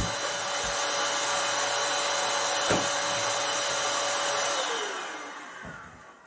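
Electric balloon inflator running steadily with a constant whine, then switched off about four and a half seconds in, its motor winding down with a falling pitch until it fades out. A couple of short knocks sound over it.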